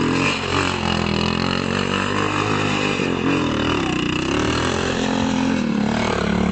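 Quad bike (ATV) engine running and revving as the quad pulls away over mud, its pitch sagging and climbing again a few times.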